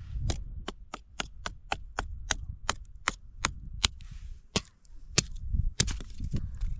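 Dry sticks being chopped into short pieces: a quick series of crisp, sharp cracks, about three a second, thinning out to a few spaced strikes in the last few seconds.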